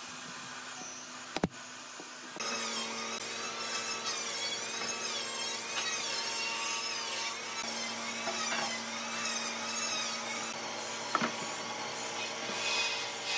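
A power tool working wood, starting about two seconds in with a steady hum and a high pitch that wavers up and down as it cuts. A sharp knock comes just before it.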